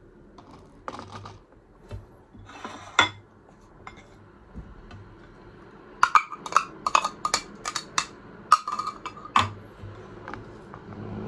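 Plastic clicks and knocks of a manual mini garlic blender being handled and opened, a few scattered taps and a short rattle, then a quick run of sharp clicks and taps in the second half.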